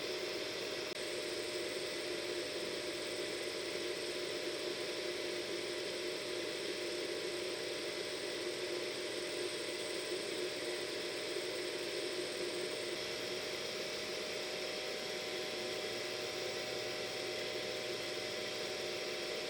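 Hair dryer running steadily: an even rush of blown air with a constant motor hum.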